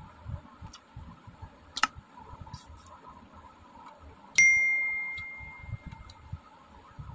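A single bell-like ding, struck once about four and a half seconds in and ringing on one clear tone as it fades over about a second and a half: the sound effect of an on-screen subscribe-bell animation. There is a short sharp click a little before two seconds in, and soft chewing and mouth noises.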